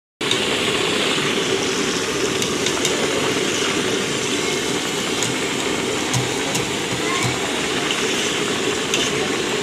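Hot oil sizzling steadily in a deep fryer, with scattered sharp crackles.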